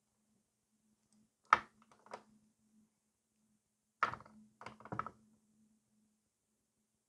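A few light taps and knocks from handling at a work table: a sharp tap about a second and a half in, a softer one just after, then three more close together about four to five seconds in, over a faint low hum.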